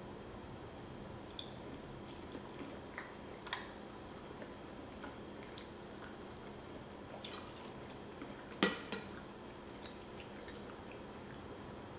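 Quiet, wet mouth sounds of someone chewing shrimp, with scattered soft clicks and one sharper click about two-thirds of the way through.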